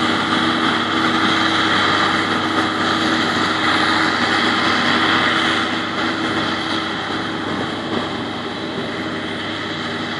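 Self-propelled forage harvester chopping maize for silage, with a tractor and trailer running alongside: a steady engine and chopper drone with a hiss over it, growing a little fainter after about six seconds as the machines pull away.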